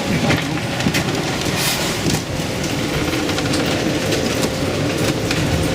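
Storm-force wind and heavy seas around a sailboat offshore: a loud, steady rush of wind and water, with a faint steady tone running through it.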